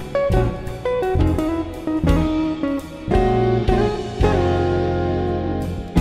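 Background music with plucked guitar notes over sustained bass notes.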